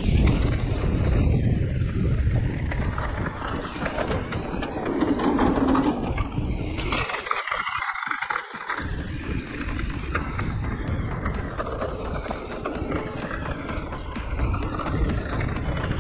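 Giant Reign E+ electric mountain bike rolling down a rough enduro trail: tyres rumbling over the ground and the bike rattling, with many small knocks. The low rumble briefly drops away about halfway through.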